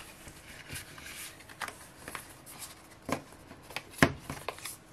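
Light clicks, taps and crinkles of small cards and packaging being handled, with a sharper tap about four seconds in.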